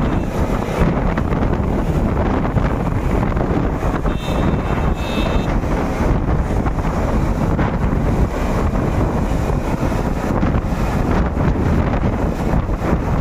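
Airbus H145-type helicopter (shrouded fenestron tail rotor) flying overhead and climbing away after take-off: a loud, steady rotor and turbine noise with wind buffeting the microphone. A brief high thin tone sounds about four seconds in.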